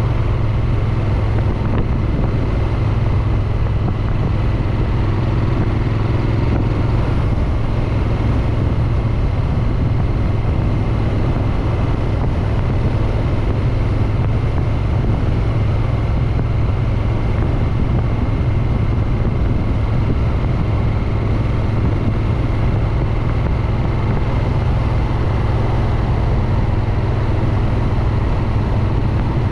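Triumph Street Twin's 900 cc parallel-twin engine and exhaust running steadily at an even engine speed.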